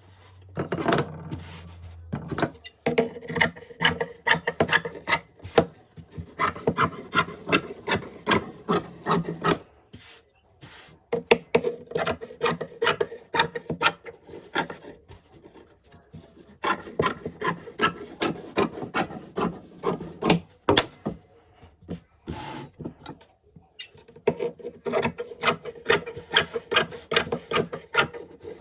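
Domestic sewing machine stitching in runs of several seconds, a rapid, even needle rattle over a motor hum, stopping and starting again several times.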